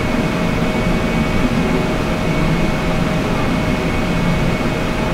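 Steady mechanical drone of a running machine: an even whir with a couple of faint constant tones, unchanging throughout.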